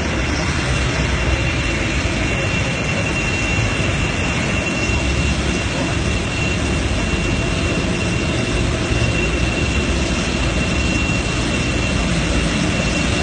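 Jet airliner's engine noise on the apron: a steady, even rush with a steady high-pitched whine over it.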